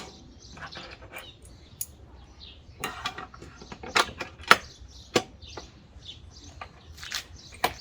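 Metal hinges and aluminum extrusion pieces being handled and tried in place, giving a few scattered clicks and knocks, the loudest two about four and four and a half seconds in.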